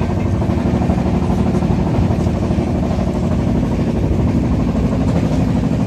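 Steady rumble of a moving passenger train heard from inside a sleeper coach: wheels running on the rails with a constant low hum underneath.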